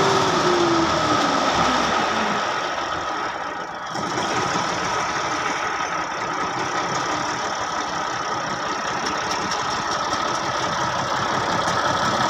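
Massey Ferguson 260 tractor's diesel engine running at idle with a steady clatter. Its note drops in pitch over the first couple of seconds, then holds steady.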